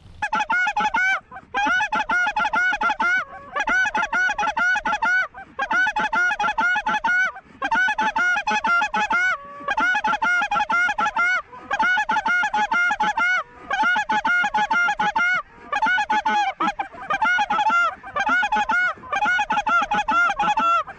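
A big flock of small geese (lesser Canada geese, cackling geese and snow geese) calling overhead: high, yappy cackling in dense overlapping runs, broken by short gaps about every two seconds.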